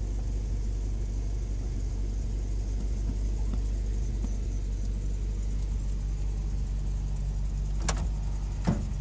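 A campervan driving: a steady low rumble of engine and road noise, with two short sharp clicks near the end.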